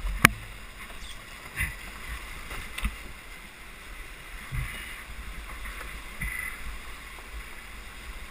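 Steady rush of whitewater rapids, with a sharp knock just after the start and a few duller bumps over the next few seconds as a loaded canoe is handled and tipped on its side against shoreline rocks.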